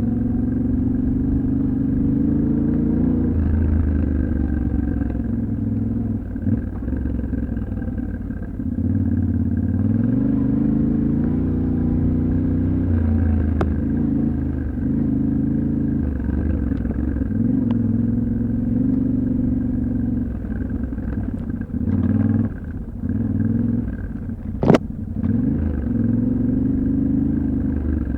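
Yamaha Ténéré 700's 689 cc parallel-twin engine being ridden, its pitch rising and falling repeatedly with throttle and gear changes. There is one sharp knock about three-quarters of the way through.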